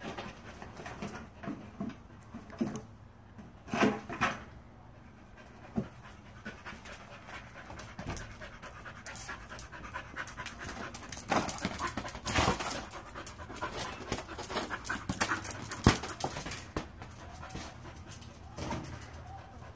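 Dog panting hard while playing with a soccer ball, with a few dull thumps and scuffs; a single sharp click about three-quarters of the way through.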